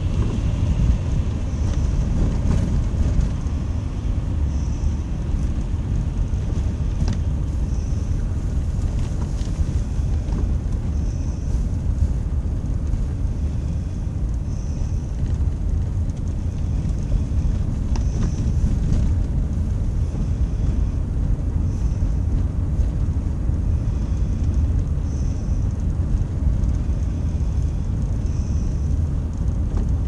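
Steady low rumble of a car driving slowly on an icy, snow-covered highway, heard from inside the cabin.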